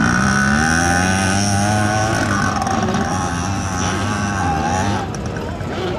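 Motorcycle engine revving hard under load up a steep hill climb. Its pitch rises over the first two seconds, then holds and drops away a little near the end.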